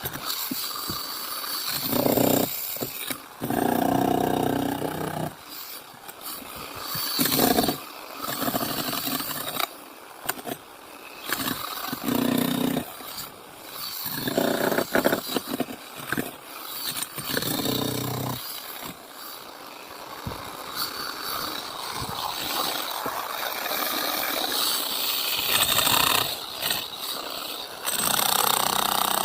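Power saw cutting concrete, a rough grinding noise that swells and drops back in uneven bursts as the cut goes on.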